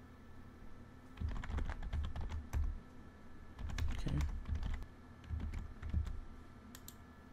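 Typing on a computer keyboard in three short bursts of rapid key clicks.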